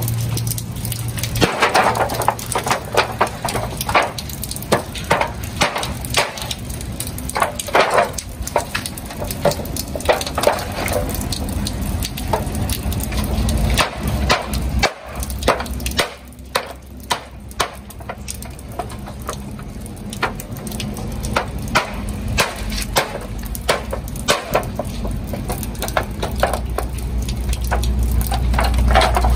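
A knife chopping and slicing into a whole river catfish laid on a plastic sheet: a long series of irregular knocks and short cutting strokes, over a steady low hum.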